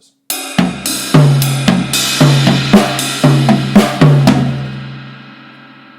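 Drum kit played with sticks: about four seconds of quick strokes with double strokes broken between two different drums, over cymbal wash. The drums and cymbals then ring out and fade.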